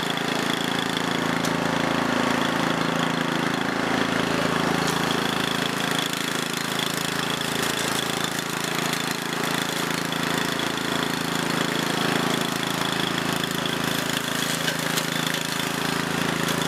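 Walk-behind brush hog's engine running steadily as the mower is pushed through tall grass and weeds.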